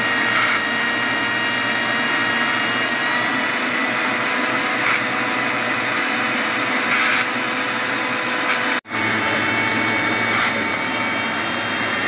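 Panasonic countertop blender running steadily, crushing ice cubes and watermelon chunks into juice, with a steady motor whine. The sound cuts out for an instant about nine seconds in, then carries on.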